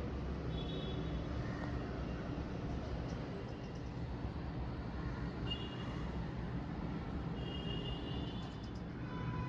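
Steady low background rumble, with a few brief high chirps: one about half a second in, one in the middle and one near the end.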